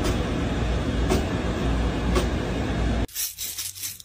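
A deep, steady noise with a faint click about once a second, cutting off sharply about three seconds in. It gives way to a hand crinkling a crumpled piece of clear plastic, a run of sharp crackles.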